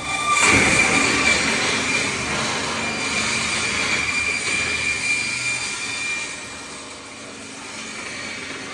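IBC tank cutting-demolition machine at work, a loud grinding noise with a steady high squeal through it, easing off about seven seconds in.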